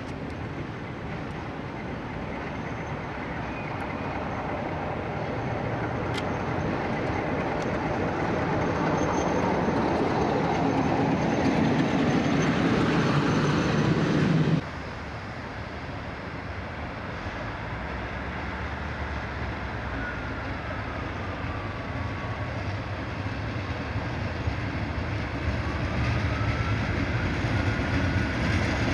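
British Rail Class 47 diesel locomotive hauling a train of oil tank wagons passes close by, its noise building steadily to a peak before cutting off suddenly about halfway through. A Class 37 diesel locomotive then approaches, growing steadily louder.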